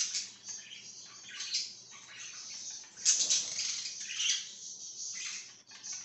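A flock of pet budgerigars chattering and chirping in quick, scratchy, irregular bursts, loudest about three seconds in, where a flutter of wings also sounds.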